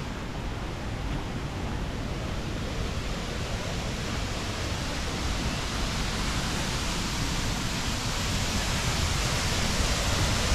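Steady rush of fast-flowing stream water, growing louder toward the end.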